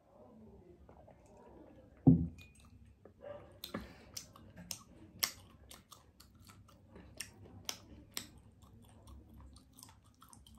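Close-miked mouth sounds of someone drinking water from a mug, then a loud low thump about two seconds in as the mug goes down on the table. After it comes a run of sharp, wet mouth clicks and smacks, a few each second.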